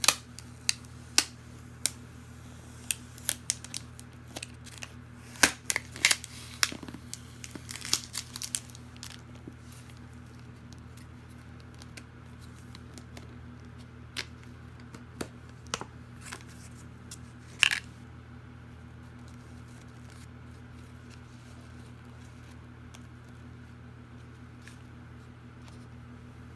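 Packaging being torn and crinkled open by hand: a dense run of sharp crackles and snaps for the first several seconds, then scattered crinkles, with one louder snap a little past the middle.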